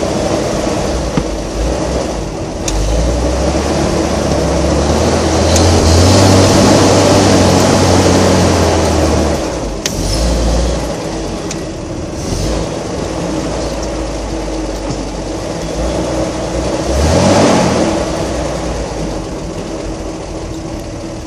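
Off-road 4x4's engine running under load while driving off-road, its revs rising twice, once in the middle and again later. A few sharp knocks from the vehicle are heard over the engine.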